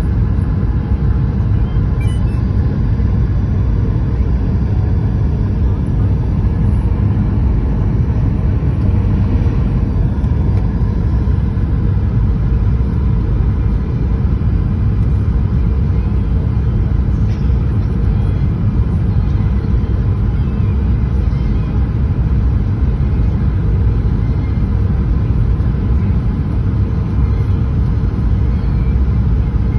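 Steady cabin noise inside a Boeing 737-800 on final approach: a loud, even low rumble from its CFM56-7B turbofan engines and air rushing over the fuselage.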